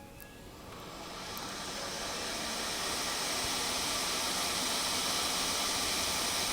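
Hot air rework station blowing a steady hiss of air, growing louder over the first two seconds and then holding steady, as it heats the logic board to solder a chip.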